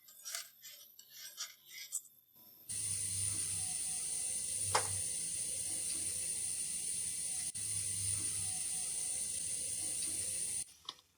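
A few faint clinks, then a pan of milk heating on the stove toward the boil: a steady hiss with a low hum that starts and stops abruptly, with one sharp clink in the middle.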